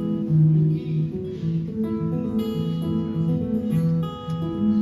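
Live band playing an instrumental passage between sung verses, carried by strummed acoustic guitar.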